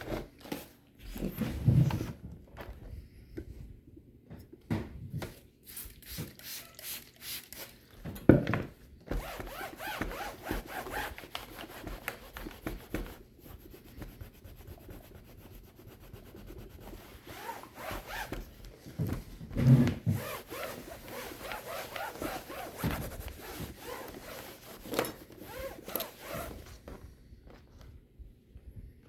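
Irregular rubbing and scrubbing on a laptop's plastic casing during cleaning, with a few knocks as the laptop is handled, the loudest about two, eight and twenty seconds in.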